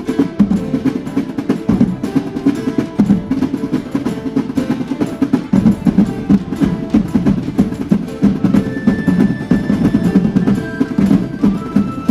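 Music with fast, continuous drumming, with a few held high notes over it in the second half.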